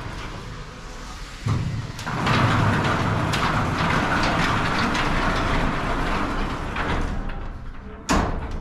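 Sectional garage door travelling along its tracks, a rolling rumble with rattling from the rollers that sets in about a second and a half in and runs several seconds, then a sharp knock near the end. Much of the noise comes from the door's rollers, which the technician judges due for replacement though not damaged.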